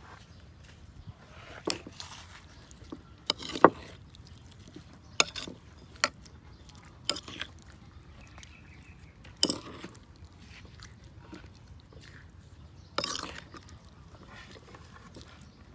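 Metal spoon stirring and tossing cooked papaya pieces in a ceramic bowl, clinking against the bowl several times at irregular intervals, with soft sounds of food being moved between clinks.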